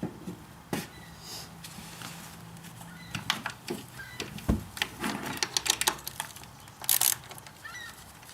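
Small bolts being fitted and run in with a socket ratchet, with quick metallic clicks and rattles of the tools and bike parts from about three seconds in. There is one heavier knock about halfway through.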